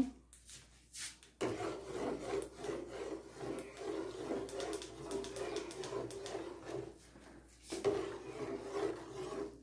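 Continuous rubbing and rasping as a cardboard carton of sweetened condensed milk is squeezed and emptied into an aluminium pot, with a short break about seven seconds in.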